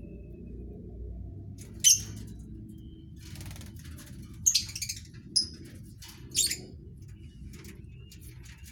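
Lovebirds giving short, shrill chirps, four sharp calls spread over a few seconds over a low steady hum.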